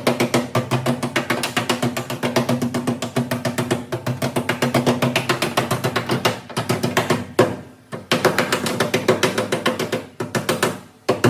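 Background music with a fast percussive beat over a steady pitched backing; it dips out briefly twice, once past the middle and once near the end.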